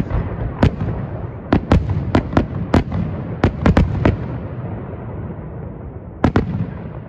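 Fireworks display: aerial shells bursting, about ten sharp bangs in quick succession over the first four seconds with a rumble between them. The rumble then fades, and two more bangs come close together about six seconds in.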